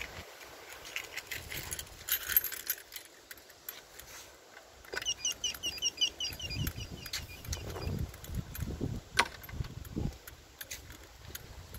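Footsteps and phone-handling knocks from someone walking, with a small bird's rapid series of about a dozen high chirps about five seconds in.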